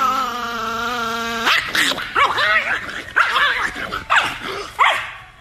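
Chihuahua howling with a wavering pitch for about a second and a half, with a man's low steady howl under it, then a string of short, rising-and-falling yaps and barks until near the end.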